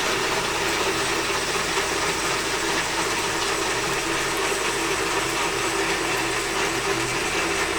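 Geared DC motor of a homemade robot arm running steadily as it drives a joint down.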